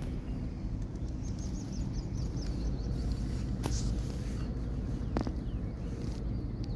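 Outdoor ambience with a steady low rumble. A short, high trill of rapid bird notes comes about a second in, and a couple of sharp clicks follow later.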